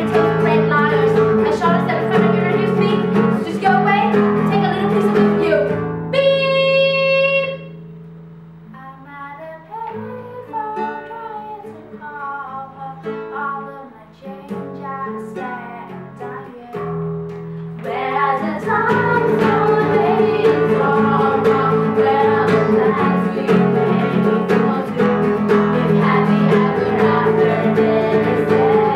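Acoustic guitar strummed under two girls' voices singing a pop song together. About six seconds in the voice holds one long note, the song drops to a quieter, sparser passage, and the full guitar and singing come back in about eighteen seconds in.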